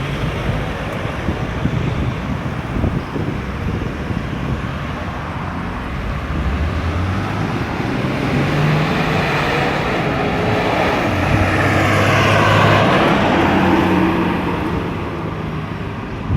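Road traffic around a roundabout: car and heavier vehicle engines running and passing, with one vehicle passing close and loudest about twelve seconds in before fading.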